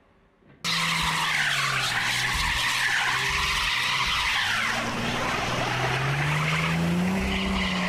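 Chrysler 300 sedan stuck in snow, its engine revving up and down while the drive wheels spin without grip, under a loud rushing hiss. It starts suddenly about half a second in.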